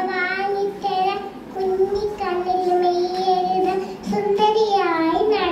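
A young girl singing solo into a microphone in a high child's voice, holding long, slightly wavering notes in a few phrases with short breaks between them.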